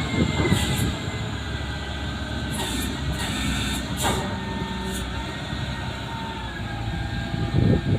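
A large machine's engine running steadily with a low rumble and a thin high whine that drifts slightly lower near the end, with a few brief high hisses.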